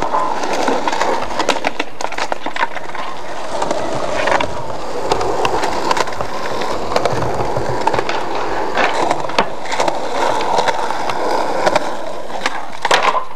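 Skateboard wheels rolling over rough concrete, a steady grinding rumble broken by sharp clacks of the board and trucks striking the ground, with a burst of loud clacks near the end.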